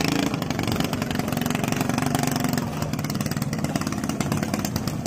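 Small racing boat's engine running hard as the boat speeds past, a continuous fast-firing drone whose pitch drops a little past the middle.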